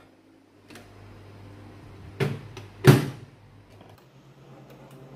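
Microwave oven door shut with two clunks, about two and three seconds in. Faint clicks follow from the mechanical timer dial being turned, and the oven starts humming near the end.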